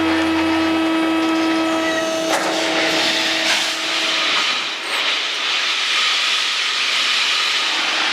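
Rebar hydraulic guillotine shear machinery running: a steady hum, then a loud hissing noise that takes over about two seconds in as the hum fades.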